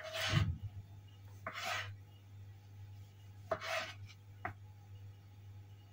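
Kitchen knife cutting tomatoes on a cutting board: four separate short cutting strokes, the last one briefest.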